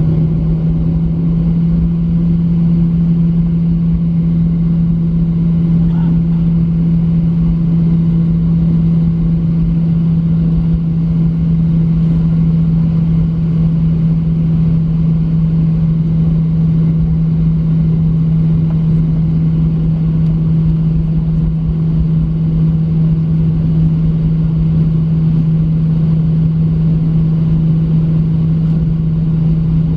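Cabin noise of a Boeing 737-900's CFM56-7B turbofans at taxi idle, heard from a window seat beside the engine: a steady low hum over a constant rumble.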